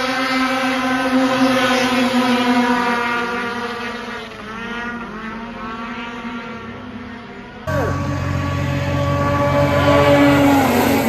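Racing snowmobile engines running at high revs, their pitch holding and then sliding down as the sleds pull away and fade. About two-thirds of the way through, the sound cuts abruptly to another stretch of sled engines, louder and deeper, rising and falling in pitch.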